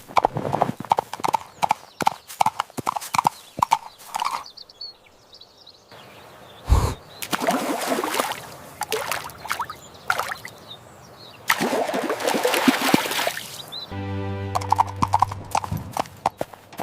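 Cartoon soundtrack of music and sound effects. A quick run of clicking beats comes first, then a single low thump and two long rushing noisy stretches, and near the end a low steady drone.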